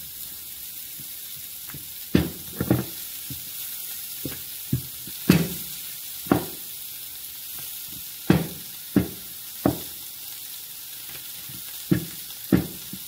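Wooden rolling pin knocking and rolling on a granite counter as flour-tortilla dough is rolled out, about a dozen irregular knocks. Under it, a steady sizzle from potatoes and sausages frying in a pan.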